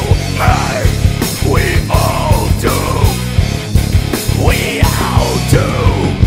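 Rock band playing live: electric guitar, bass guitar and a drum kit driving a steady beat.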